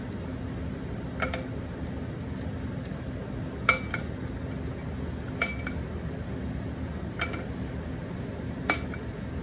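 CNC machine drawing with a paint pen, running with a steady low hum, with five sharp metallic clicks coming every couple of seconds.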